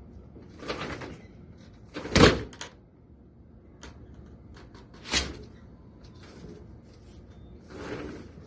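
A damaged, hard-to-open door being pulled: two sharp knocks against its frame, the louder about two seconds in and another about five seconds in, with softer rustling and scraping between them.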